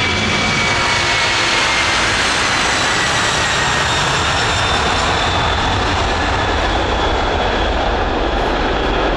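Boeing 747 freighter's four turbofan engines running as it rolls along the runway: a steady, loud jet roar with a high whine that slides slightly lower in pitch over the first few seconds.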